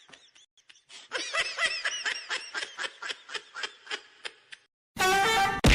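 Rapid, high-pitched snickering laughter in quick short bursts, about four or five a second. Near the end comes a loud, harsh blast that stops abruptly.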